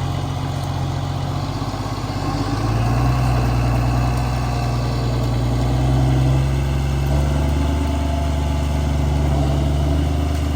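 John Deere 648H grapple skidder's diesel engine running steadily, revving up about two and a half seconds in and holding at the higher speed.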